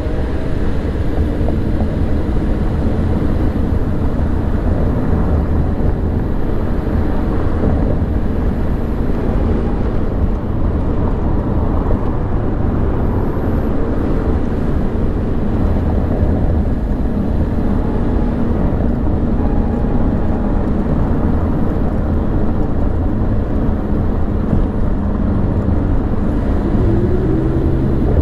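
Car driving through city streets: a steady low rumble of engine and tyre noise, with a brief change in pitch near the end.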